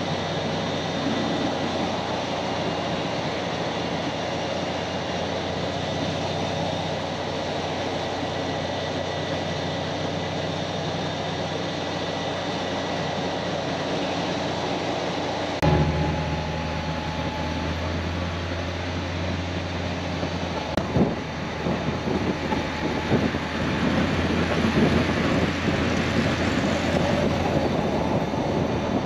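Car driving on the road: a steady engine drone with road noise. The sound shifts suddenly about halfway through and turns rougher and more uneven toward the end.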